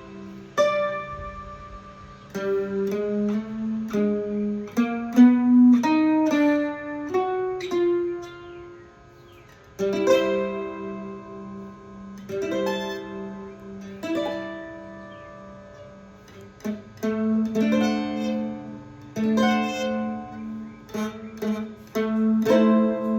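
Loar 310 electric guitar playing a blues turnaround lick from A to E in short phrases of picked single notes and chords, with a quieter pause about eight seconds in before the phrase starts again.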